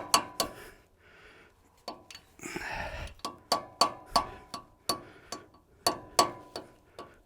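Small hammer tapping steel on steel with a ringing clink, working a sheared bolt to back it out. A brief pause, then the taps resume, slower and uneven, getting fainter toward the end.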